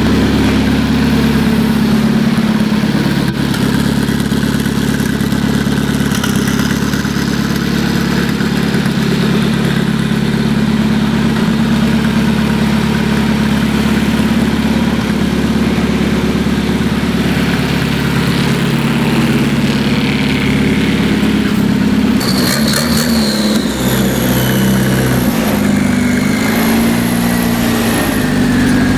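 Modified tractor's engine idling steadily, then revved in the last quarter, its pitch rising and falling.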